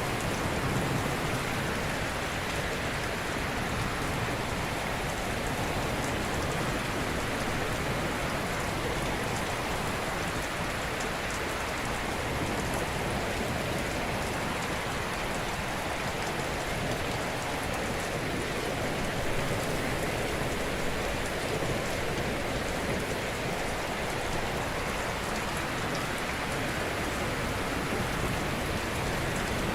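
Ocean surf washing in steadily, a dense even hiss of breaking waves with little rise and fall.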